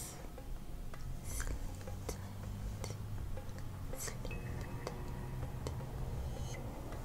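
Close-up ASMR mouth sounds: wet lip smacks and saliva clicks, scattered and irregular, over soft background music with steady low notes.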